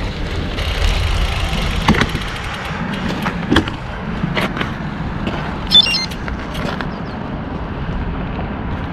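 Wind rumbling on an action camera's microphone, with several sharp clicks and knocks, one of them with a brief high squeak.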